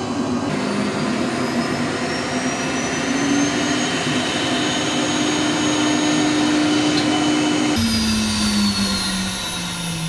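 CNC router's vacuum hold-down motor switched on and spinning up: a loud, steady rushing whine that climbs slowly in pitch. About eight seconds in the sound changes abruptly and the whine falls in pitch as a motor winds down.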